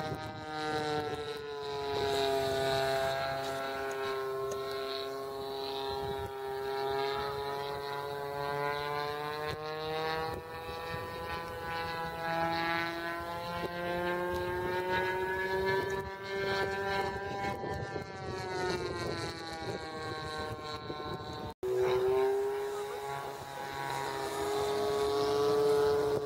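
Radio-controlled model aeroplane flying overhead, its motor running with a steady buzzing note that slowly rises and falls in pitch as it manoeuvres and passes. The sound cuts out for an instant about three-quarters of the way through.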